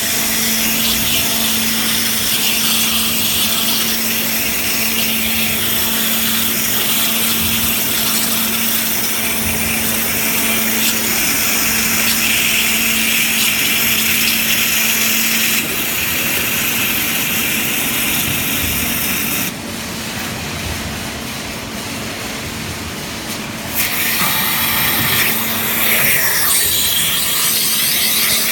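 Waterjet cutting machine running, its high-pressure jet hissing loudly as it cuts glass over a steady low hum. About two-thirds of the way through, the hiss drops away for about four seconds, then comes back.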